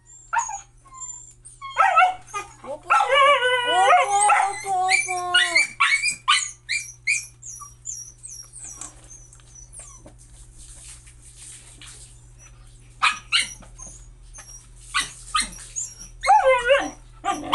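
Husky puppy whining and howling in drawn-out, wavering cries a couple of seconds in and again near the end, with short yips and barks between: a hungry dog begging while its food is being dished out.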